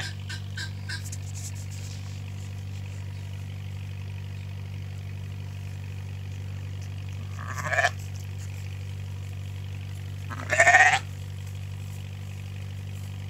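Sheep bleating twice, a short call a little past the middle and a louder one about three seconds later, over a steady low hum.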